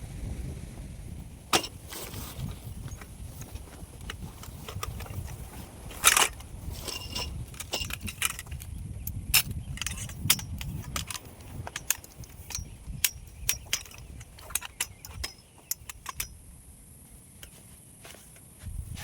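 Irregular sharp clicks and knocks, the loudest about a second and a half in and about six seconds in, thinning out near the end, over a steady low rumble.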